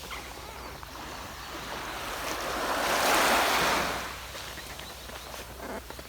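Sea waves washing onto a beach, one wave surging up about three seconds in and then falling away.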